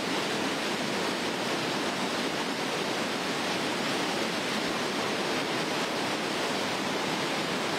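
Floodwater rushing steadily, an even noise that does not change or break.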